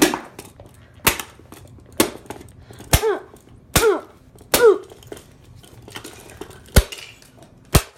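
About eight hard strikes on a plastic toy robot, roughly one a second, as it is being smashed apart. A short falling grunt follows three of the blows in the middle.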